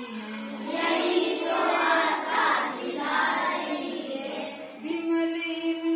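A class of primary-school children singing a Hindi song together in unison, drawing out long held notes.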